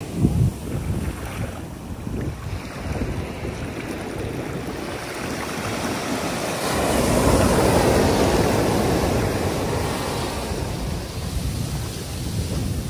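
Shallow surf washing up over sand, a foamy rush that swells to its loudest about seven seconds in and then eases off. Wind rumbles on the microphone underneath.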